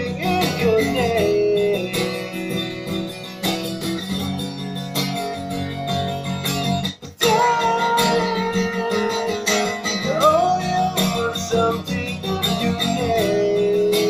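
A man singing while strumming a guitar, with a brief break in the sound about halfway through.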